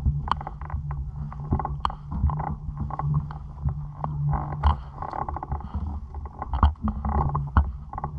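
Pool water sloshing and lapping against a waterproof action camera held at the surface, with many small splashes and clicks, over a steady low hum.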